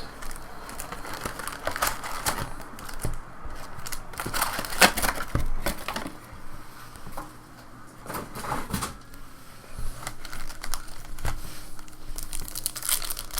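Trading card packs and cards being handled: irregular crinkling of pack wrappers, with scattered sharp clicks and snaps as the cards are flipped through.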